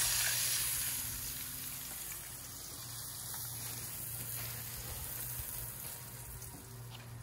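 Hot oil in a deep-fry pot sizzling and bubbling around battered crappie and bluegill fillets, loudest at first and easing off within a couple of seconds as the wire fryer basket is lifted out of the oil to drain.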